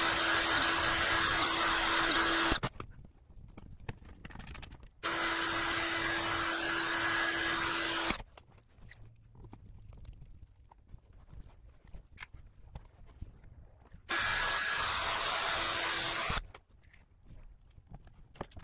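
Cordless drill running at a steady speed in three bursts of about three seconds each, drilling holes through a plastic bumper skid plate into the car's carbon fiber front splitter. Faint handling clicks come between the bursts.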